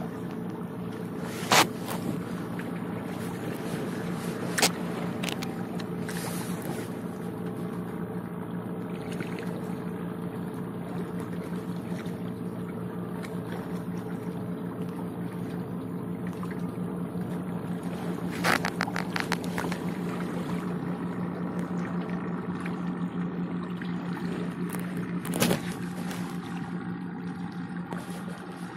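Boat engine running at a steady speed, with an even hum throughout and a few sharp knocks scattered through it.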